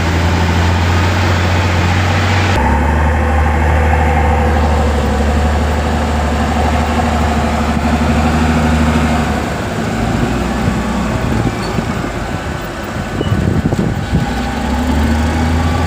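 Heavy diesel engine running steadily. Its note shifts about two and a half seconds in, eases off about ten seconds in, and comes back up near the end.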